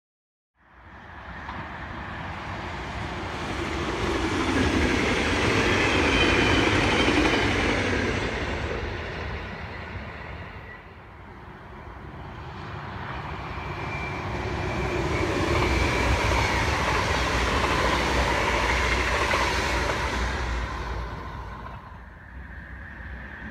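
An electric-locomotive-hauled intercity train passes at speed, its wheel and rail noise swelling and fading over several seconds. A double-deck electric train follows and passes about fifteen seconds in, making a second swell of the same rushing rail noise.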